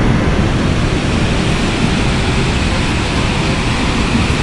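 Iguazu Falls roaring at the Devil's Throat gorge: a loud, steady rush of plunging water close by, heavy in the low end.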